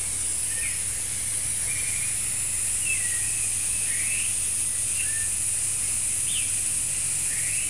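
Steady high hiss of steam venting from a pressure cooker on the stove, with a few short bird chirps through it.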